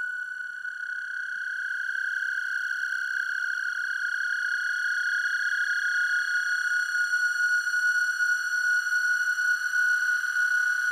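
A short plastic-on-wood toy recording played back time-stretched by granular processing in Hourglass, its tiny slices looped so that the sound is drawn out into a steady high tone with fainter overtones, slowly growing louder.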